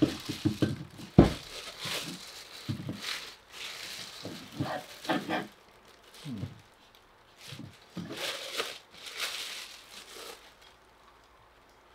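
Clear plastic packaging crinkling and tearing as it is pulled off a stainless steel strainer hopper, in irregular rustles. There is one sharp knock about a second in.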